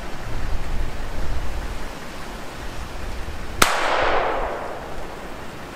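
A single gunshot about three and a half seconds in, its echo dying away over a second or so, over a steady low rumble.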